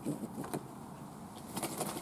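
Fantail doves in an aviary moving about: a few short low sounds near the start, then a quick cluster of clicks and rustles about a second and a half in.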